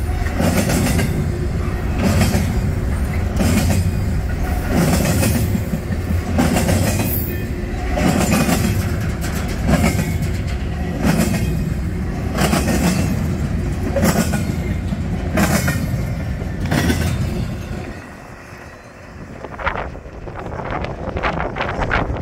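Double-stack intermodal container train passing at speed: a steady heavy rumble of steel wheels on rail, with wheel clicks in an even rhythm about every second and a half. About 18 seconds in the last car passes and the sound falls away to the fading train.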